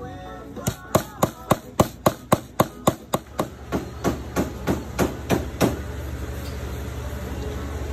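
A rapid, evenly spaced series of sharp knocks, about three a second, that fades out about two-thirds of the way through, leaving a steady low hum.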